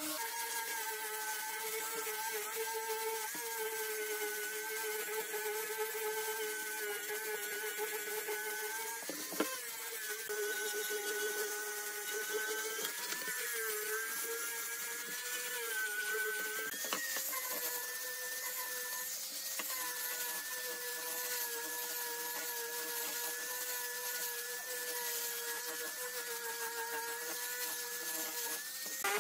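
Electric angle grinder with a sanding pad disc running while sanding curved wooden boards: a steady motor whine whose pitch dips and wavers slightly as the pad is pressed into the wood. Two short knocks, about 9 and 17 seconds in.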